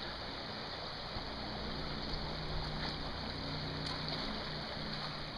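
River water flowing in a steady rushing hiss, with a faint low hum underneath from about a second in.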